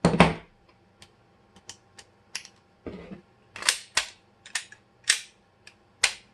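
Glock 19 pistol being worked by hand: a series of a dozen or so sharp metallic clacks and clicks, irregularly spaced, the loudest right at the start, as the reassembled slide and action are cycled.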